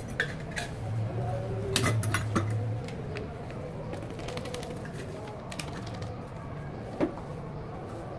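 Kitchen utensils knocking and tapping against an enamel cooking pot as dry ingredients are tipped in and stirred: a few sharp taps at the start, a quick cluster about two seconds in and a single knock near the end, over a steady low hum.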